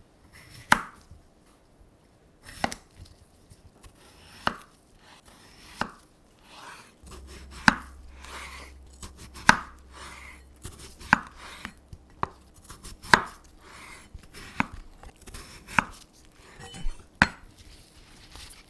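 Chef's knife cutting a cucumber into chunks on a wooden cutting board: a sharp knock of the blade on the board every second or two, about a dozen cuts, with a soft crunch of the cucumber between some of them.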